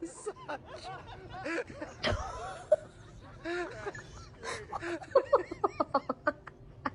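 People laughing and snickering in short bursts, with a quick run of laughs near the end and a sharp click about two seconds in.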